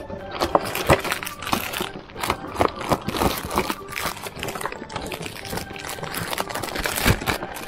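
A Chihuahua digging with her front paws through a cardboard box of shredded paper filling and plastic treat bags, making quick, irregular rustling, crinkling and scratching strokes.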